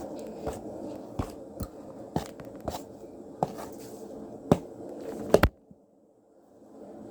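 Irregular sharp clicks and taps, about eight of them, the loudest a quick pair around five seconds in, over a steady background hum. The background cuts out suddenly after the last taps and comes back slowly near the end.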